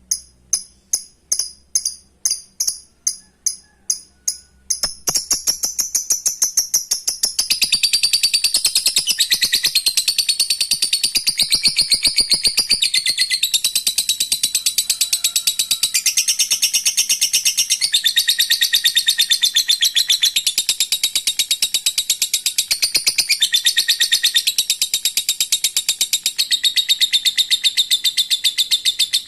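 Lovebird ngekek: a long, unbroken, rapid high-pitched chattering trill lasting more than twenty seconds. It starts about five seconds in, after a run of evenly spaced sharp chirps about twice a second.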